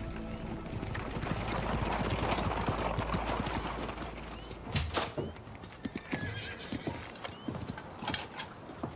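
Horse-drawn wagon approaching: hooves clip-clopping and the wooden wagon rattling, loudest about two to three seconds in, then thinning to scattered hoof knocks as it draws up.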